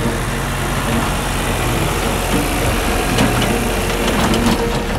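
Tractor engine running steadily, with a few scattered knocks and clanks from the working machine.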